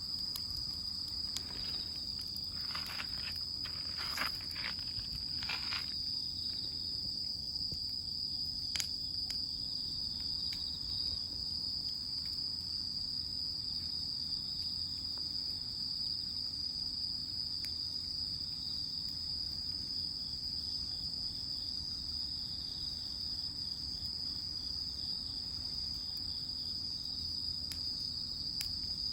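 Crickets chirping in a steady, unbroken high trill, with a few brief crackles a few seconds in.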